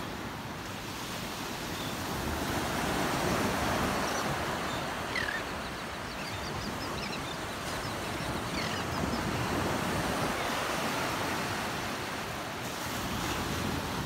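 Low surf washing up the beach with wind buffeting the microphone, steady throughout. Around the middle come a few faint seabird calls: short chirps and a couple of quick downward cries.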